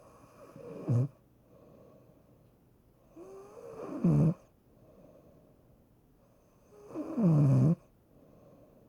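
A person snoring: three loud snores about three seconds apart, each falling in pitch and cutting off sharply, with softer breaths between them.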